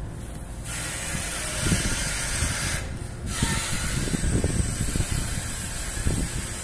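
A steady hiss that starts suddenly just under a second in and breaks off briefly about three seconds in, over a low, uneven rumble.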